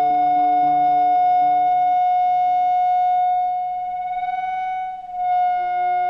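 The closing drone of a looped solo performance: one high note held steady, wavering slightly about four and a half seconds in. Lower sustained tones fade out under it in the first half, and a new middle tone comes in near the end.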